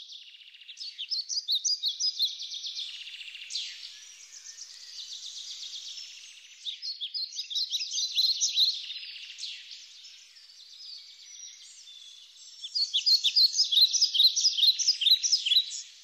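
Birds chirping: rapid high twittering notes and trills that come in bursts of a few seconds, the last burst the loudest.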